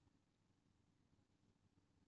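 Near silence: a pause in the narration, with only a very faint low hum.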